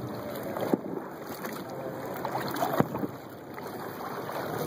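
Two sharp pops of distant fireworks going off, about one and three seconds in, the second louder, over a steady wash of water and wind noise around a kayak.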